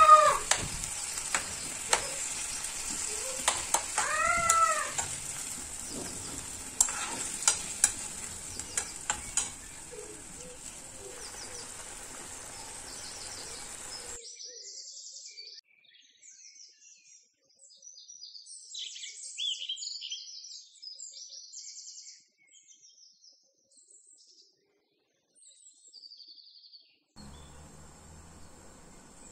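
Canned beef and green onions sizzling as they fry in a metal frying pan, stirred with a metal spoon that clicks against the pan and twice gives a loud squeak. About halfway through the sizzling stops and only faint high chirps remain.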